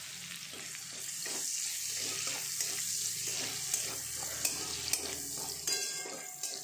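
Chopped garlic sizzling in hot oil in an aluminium wok, stirred with a metal spatula that scrapes and clicks against the pan. The sizzle swells about a second in.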